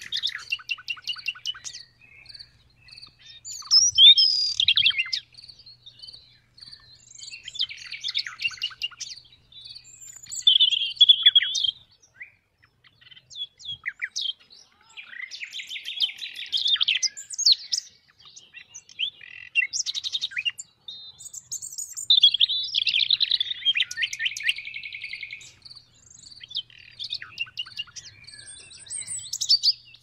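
Nightingale singing: a string of varied phrases of rapid repeated notes, trills and whistles, each a second or two long, with short pauses between.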